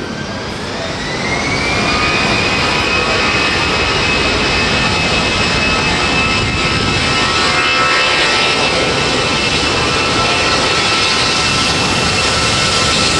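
Jet airliner engines spooling up: a whine rises in pitch over the first two seconds, then holds steady over a loud, even rushing noise at high power.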